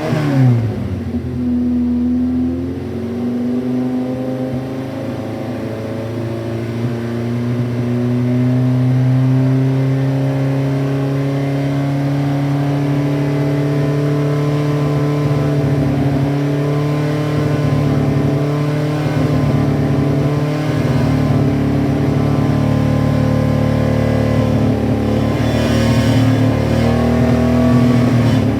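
Honda S800's water-cooled DOHC inline-four engine running, with a quick rev up and down at the start, then the pitch climbing slowly over several seconds and holding steady.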